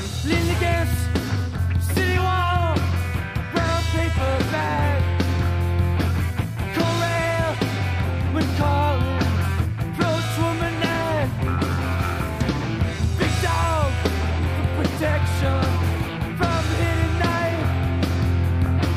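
Rock music: a band with electric guitars, bass and drums playing at full volume, with bending lead notes over a steady low bass line.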